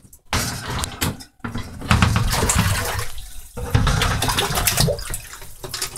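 Water splashing and sloshing in a reptile tank, with irregular bumps and a low rumble.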